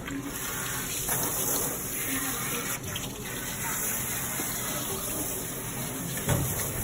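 Water spraying steadily from a hose sprayer as it rinses a dog's head and coat, with a brief thump near the end.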